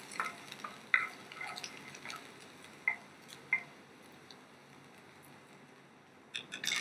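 Wooden spatula knocking and scraping in a small non-stick pan while stirring chopped garlic in a little oil. About half a dozen light clicks come in the first few seconds, then a pause, then a few more clicks near the end.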